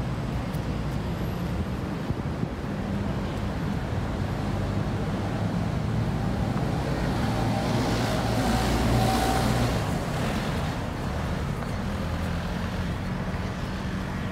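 Road traffic: a steady low hum of engines running, with one vehicle passing that swells to its loudest about nine seconds in and fades again.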